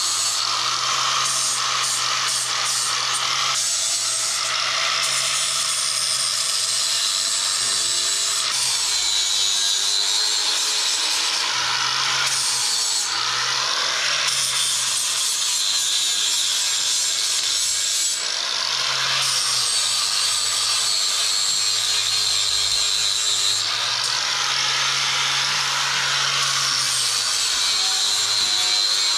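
Angle grinder with a fine flap disc grinding weld spatter off welded steel, running continuously, its high whine wavering in pitch as the disc bears on the metal.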